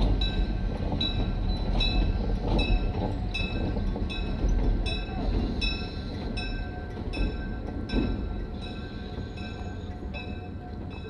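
A train hauled by two diesel locomotives crossing a steel railway bridge: a low rumble with the wheels clacking in an even rhythm about twice a second. It fades near the end as the train moves off the bridge.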